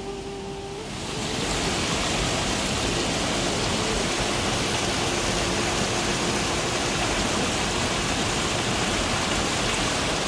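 Heavy monsoon rain pouring down, a steady, dense hiss that swells about a second in.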